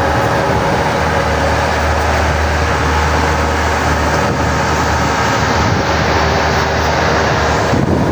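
Strong wind buffeting the microphone over waves washing on the shore: a loud, steady rumbling noise with no break.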